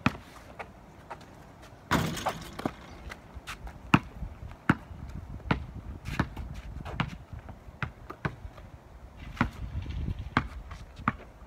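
Basketball bouncing on asphalt as it is dribbled, in sharp, irregular bounces about one or two a second. A short, louder noisy rush comes about two seconds in.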